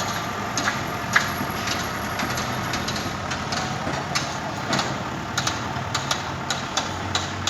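Construction-site din: a heavy engine running steadily under a noisy background, with irregular short knocks and clanks scattered throughout.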